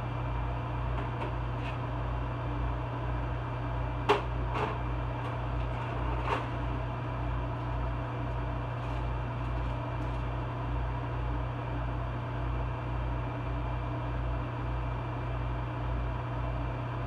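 Steady hum of an over-the-range microwave's vent fan running above the stove, with a low pulsing drone under it. A few sharp knocks about four to six seconds in, the first the loudest.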